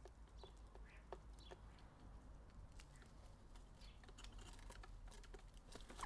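Faint, irregular taps and clicks of a jackdaw pecking at seed on a wooden bird table.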